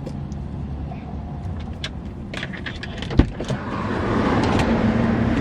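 Small clicks and rattles, a single sharp thump about three seconds in, then steady car noise that grows louder and holds: a car door shutting and the car running.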